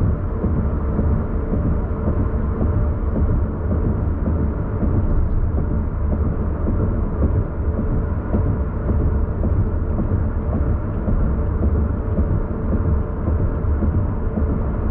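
A car cruising at steady speed, heard from inside the cabin: an even, low rumble of engine and road noise with no change throughout.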